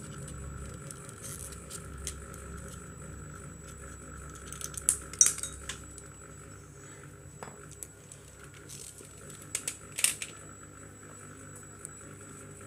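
Sharp clicks and knocks of a hard plastic laser-printer drum unit being handled and fitted, in two short clusters: the loudest about five seconds in and another about ten seconds in.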